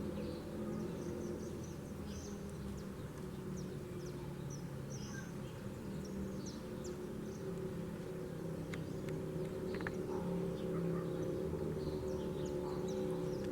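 Birds chirping in short, scattered high calls over a steady low rumble of wind and distant background noise.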